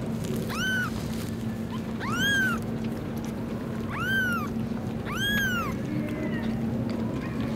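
A newborn kitten mewing four times, high thin cries that each rise and fall in pitch, over a steady low hum.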